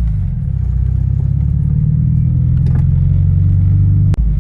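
Toyota 86's engine and road rumble heard from inside the cabin while driving, low and steady, with a sharp click and a brief dip about four seconds in.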